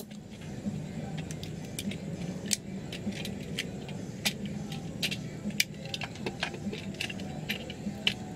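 Irregular light clicks and small metallic ticks as pliers work on an opened Hubsan Zino LiPo battery pack's circuit board and casing, over a steady low hum.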